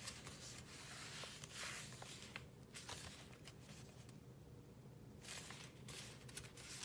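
Faint rustling and light taps of paper being handled on a book page, with a sharper click near the end.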